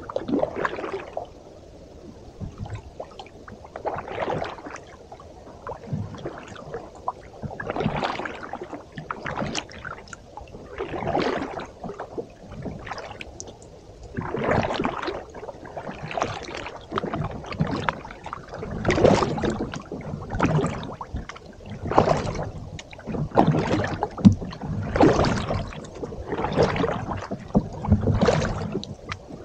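Kayak paddle blades dipping and pulling through calm water in a steady rhythm, a swishing splash with each stroke, about one every second and a half.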